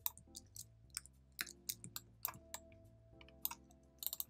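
Faint, irregular clicks of a computer mouse and keyboard keys, a dozen or so, with a quick run of clicks near the end.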